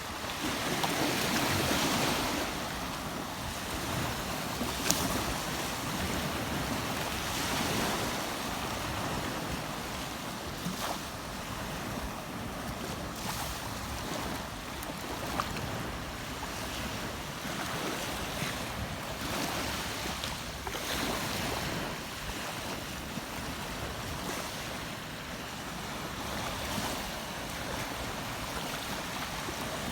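Steady rushing of river water, with small swells and a couple of sharp clicks about 5 and 15 seconds in.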